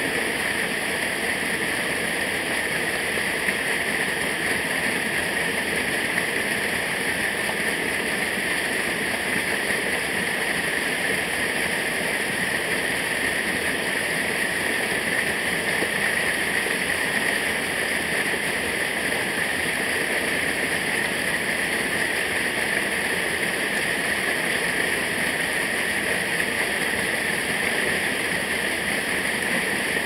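Mountain stream rushing over boulders in a small cascade: a steady, unbroken rush of water.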